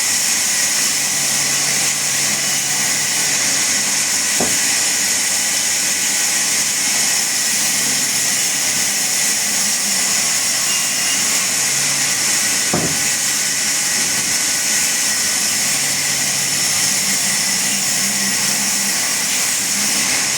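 Woodworking power saw running with a steady, even hiss-like noise, and two brief knocks, about four and about thirteen seconds in.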